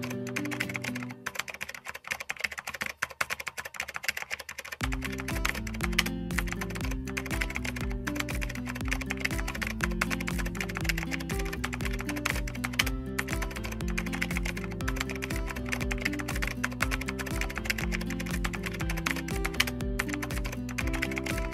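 Rapid computer-keyboard typing sound effect, a steady patter of keystrokes, over light background music. The music's bass and beat drop out about a second in and return about five seconds in.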